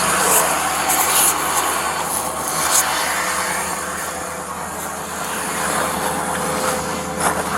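Motor vehicle driving, a steady engine hum under road noise, with a few brief high ticks.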